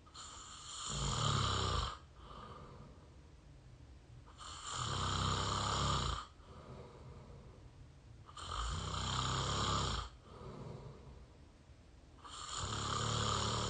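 A person snoring through an open mouth, recorded close to the microphone: four snores about four seconds apart, each about two seconds long, with quieter breaths in between.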